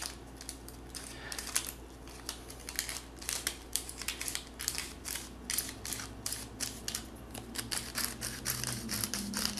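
Plastic Paterson-style film developing spiral being twisted back and forth, its two halves ratcheting with a steady run of sharp clicks as they draw the film onto the spiral. The clicks come a little faster in the second half.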